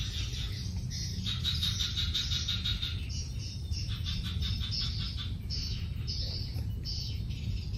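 Chirring animal calls in short repeated bouts, each a rapid string of pulses, over a steady low rumble.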